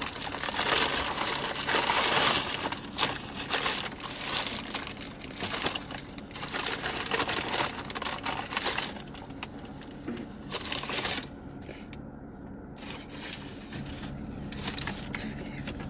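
A paper fast-food bag rustling and crinkling as a hand rummages in it to pull out food. It is busiest over the first eleven seconds or so, then drops quieter.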